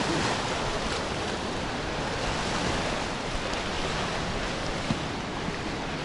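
Black Sea surf washing onto the shore: a steady rushing noise of breaking and receding waves.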